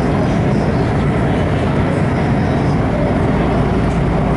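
Metro train running through a tunnel, heard from inside the carriage: a loud, steady rumble.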